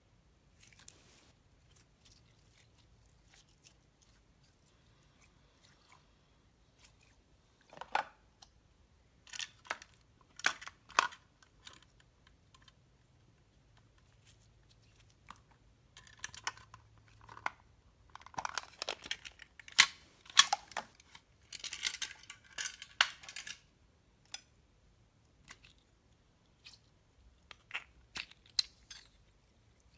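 Hands handling and opening small plastic toy cases and containers: scattered clicks, taps and crackly rustling, quiet at first and busiest a little past the middle.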